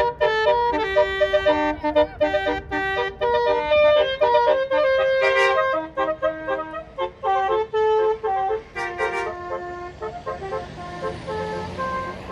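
Basuri telolet bus horn, a multi-trumpet air-horn set, playing a rapid tune of short stacked notes that jump in pitch one after another. The notes thin out near the end as a rising hiss builds.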